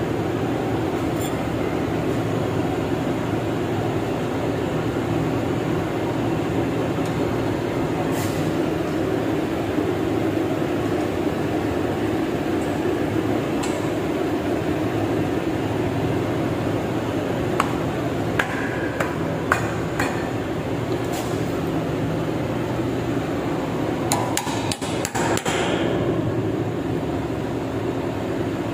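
Scattered sharp metal-on-metal taps and clinks, with a quick run of several near the end: a hammer tapping a new ball bearing, via a steel socket, into a polyurethane caster wheel held in a bench vise. A steady machinery hum runs underneath.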